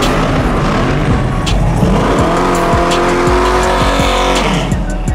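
A car engine revving hard, rising and falling, then held high for a couple of seconds, with tyres squealing as in a burnout.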